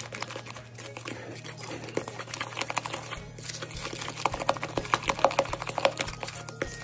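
A wooden spoon stirring thick cookie dough in a ceramic mixing bowl, beating in raw eggs: rapid, irregular clicks and scrapes as the spoon knocks and drags against the bowl, a little louder from about three seconds in, over a low steady hum.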